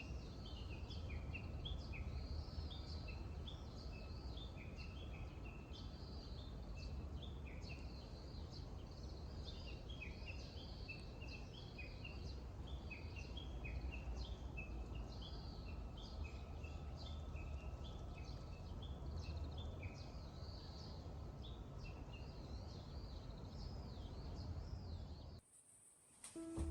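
Several birds calling, with many short chirps and downward-sweeping warbles overlapping, over a steady low background rumble. It all cuts off suddenly near the end.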